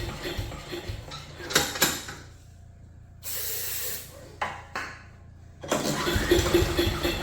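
A small gas engine on a chipper shredder runs roughly and dies about two seconds in. Aerosol starting fluid is then sprayed into the intake: one longer hiss, then two short bursts. The engine fires and picks up again near the end, running on the spray because the carburetor is not delivering fuel.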